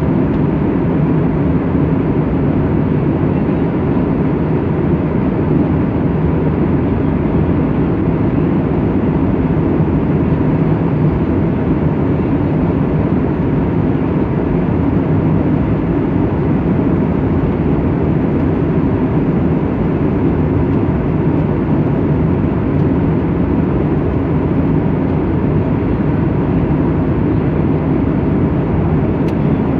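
Cabin noise inside an airliner in cruise: the steady, even rush of the engines and airflow heard from a window seat, low and unchanging.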